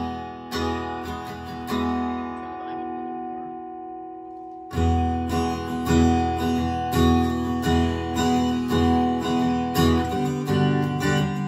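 Fender Acoustasonic Player Telecaster played through an old Crate amplifier with no effects, pickup selector in the neck position and blend knob fully clockwise. A few strummed chords, the last left ringing and fading, then steady rhythmic strumming from about five seconds in, with a chord change near the end.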